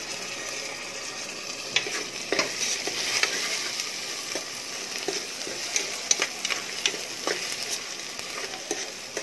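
Sliced onions and green chillies sizzling in hot oil in a pot as a spoon stirs them, with frequent sharp clicks of the spoon scraping and knocking against the pot. The onions are fried through.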